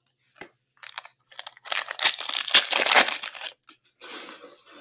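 Stiff trading cards being slid and flipped over in the hand, giving a crinkling, papery rustle that is loudest in the middle and comes again more softly near the end.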